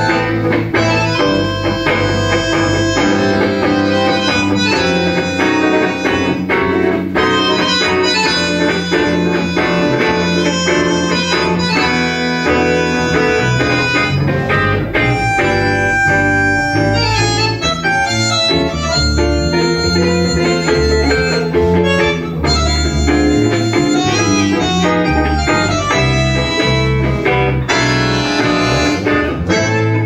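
Tango ensemble playing an instrumental passage: bandoneón carrying the melody over guitar and bass.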